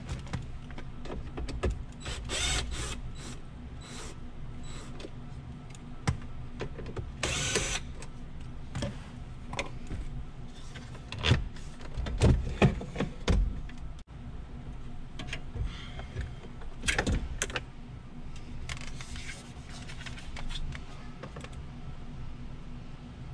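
Short whirring bursts of a cordless drill, then clicks, knocks and scraping of plastic and metal as a Hyundai Santa Fe's factory radio is worked loose and pulled out of the dashboard. The loudest knocks come about halfway through.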